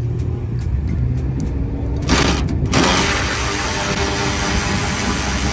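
Vehicle engine running with a low, steady rumble; about two seconds in a loud hiss cuts in and carries on over it.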